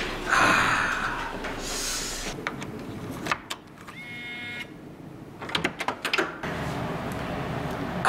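Hotel elevator doors sliding open with a rush of noise, then an electronic key-card door lock gives a short beep about four seconds in. A quick run of clicks follows as the lock releases and the handle is worked, then a steady hiss.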